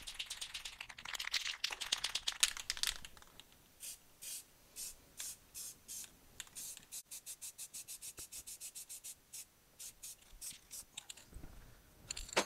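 Rust-Oleum satin black aerosol paint can shaken hard, its mixing ball rattling fast. About three seconds in, it is sprayed in many short hissing bursts, at times about two a second.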